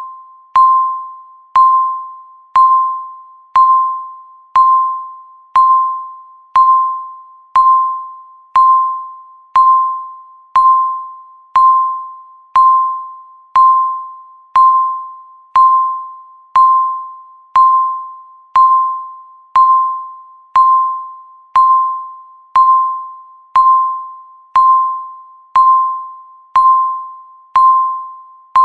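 Countdown timer beep sounding once a second, each a single tone with a sharp start that fades away before the next, ticking off the seconds.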